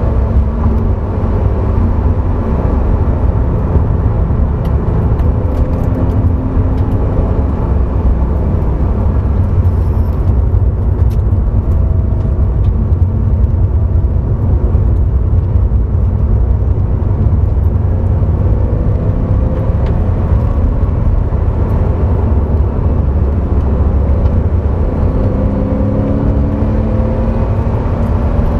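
Porsche sports car driven hard on a race track, heard inside the cabin: a loud, steady rumble of engine, tyres and wind. The engine note rises under acceleration a couple of times in the second half.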